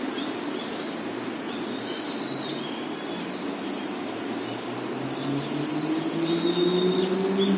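City park ambience: small birds chirping and tweeting over a steady hum of traffic. A vehicle approaches in the last couple of seconds, its engine note rising and getting louder.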